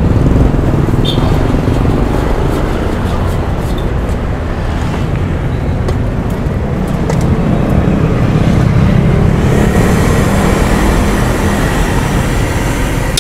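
Loud, steady low rumble of road traffic close by. About nine and a half seconds in, a higher hiss joins it.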